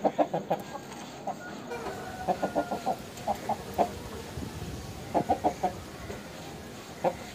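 Chicken clucking: short, sharp clucks in quick runs of three to five, repeated several times with short pauses between.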